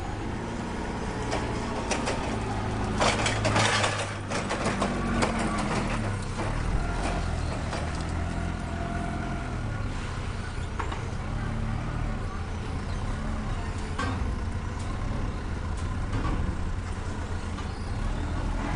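Forklift engine running under load as it shoves a steel shipping container, with a loud rushing burst about three seconds in and scattered knocks.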